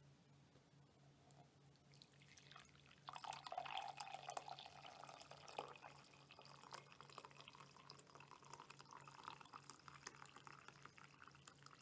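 A drink being poured into a cup, a faint splashing trickle with small drips, starting about two seconds in.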